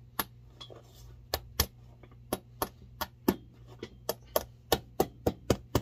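Hammer tapping lightly and rapidly on the threaded nails of a boot sole, about three sharp taps a second, knocking the nails out through the bottom, over a low steady hum.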